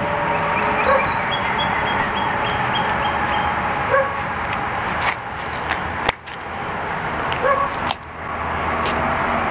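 Golden retriever mix giving three short whimpers about three seconds apart, over steady outdoor background noise.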